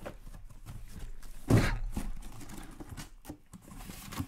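Cardboard hobby boxes of Upper Deck SP Game Used hockey cards being lifted out of a cardboard shipping case and stacked on a table, with cardboard rubbing and scraping and scattered knocks. One solid thud comes about a second and a half in.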